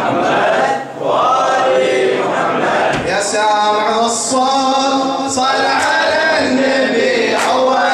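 A man singing an unaccompanied Arabic devotional song (nasheed) through a microphone and PA, in a slow chant-like melody with a long held note about three seconds in.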